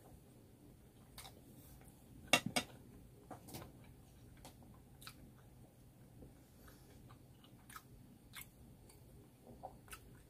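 Close-miked eating sounds: soft chewing and scattered wet mouth clicks. About two and a half seconds in there is a louder double clack of a ceramic bowl being set down on the table.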